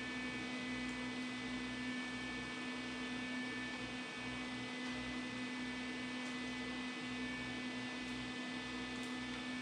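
Steady electrical mains hum, an unchanging low buzz with no welding arc sounding.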